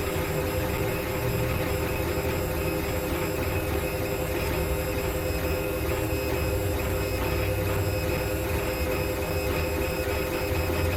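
Steady machine-like hum: a constant mid-pitched tone over a low rumble and a haze of noise, with no clear rhythm or events.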